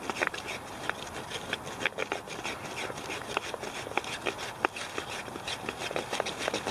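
A flat wooden board rubbed rapidly back and forth over a weathered plank, rolling a wad of cotton and wood ash between them to build an ember by friction. It makes a steady scraping with a dense run of sharp clicks and crackles.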